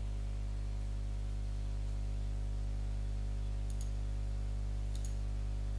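Steady low electrical mains hum, with a few faint computer-mouse clicks in the second half.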